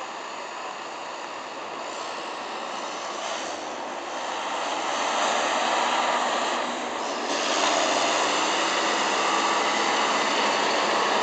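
John Deere tractor with a front-mounted snow plough driving past close by on a snow-covered road. Its engine and the noise of the rig on the road grow louder as it nears, rising in two steps.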